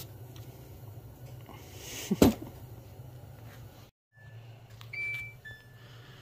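A steady low hum with a single sharp knock about two seconds in, then, after an abrupt cut, short electronic beeps at two alternating pitches, a few each second or so.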